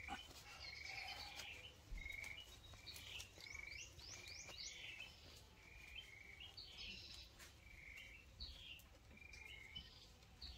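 Faint birdsong: short chirping phrases, each a brief note followed by quick higher chirps, repeated about once a second, with a few faint clicks.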